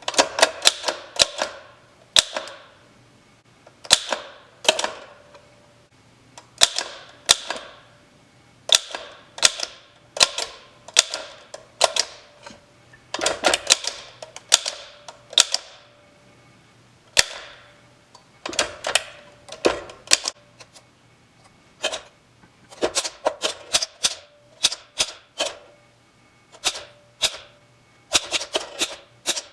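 A 1915 French Typo manual typewriter being typed on: keys striking the platen in quick irregular runs separated by short pauses, each strike a sharp clack with a brief ring after it.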